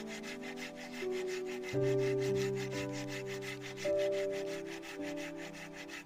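Background music: sustained chords changing about once a second over a fast, even tapping rhythm.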